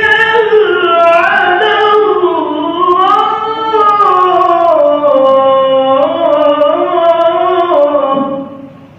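Qur'an recitation (qiro'ah): one voice draws out a long melodic phrase, its pitch winding up and down, and stops about eight seconds in.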